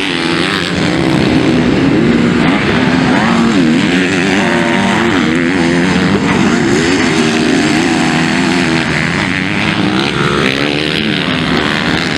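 Several MX2 motocross bikes racing together, their engines revving up and down in overlapping rising and falling pitches as the riders work the throttle through the course.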